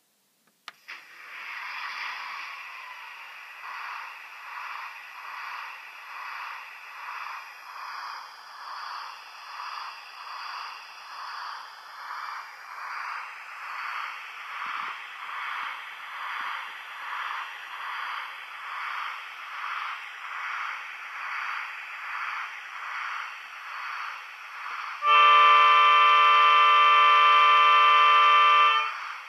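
Model diesel railmotor's DCC sound decoder through a small speaker: a click, then the diesel engine starts and runs with a pulsing throb about once a second and no bass, rising a little in pitch around the middle. Near the end a loud multi-tone horn sounds for about four seconds.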